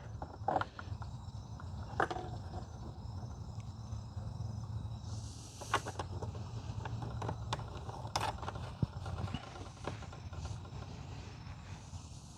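Small clicks, taps and a brief scrape of hands fitting a bulkhead connector and its rubber gasket into a case, over a steady low hum.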